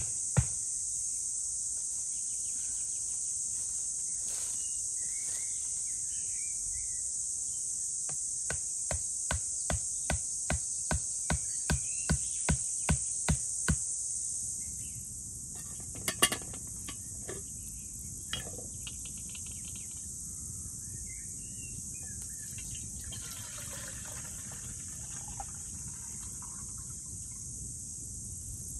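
Steady high chorus of insects with sharp wooden knocks from an axe driving a stake into the ground: one just after the start, then about a dozen at roughly two a second, growing louder, stopping about halfway through. After that the insects are fainter, with a few scattered clicks and knocks.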